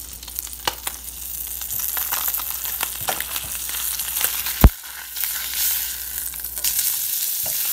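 Brook trout frying in butter in a stainless steel pan, a steady sizzle, with a spatula scraping and clicking against the pan as the fish is flipped. One sharp knock about two-thirds of the way through is the loudest sound, and the sizzle gets louder after it.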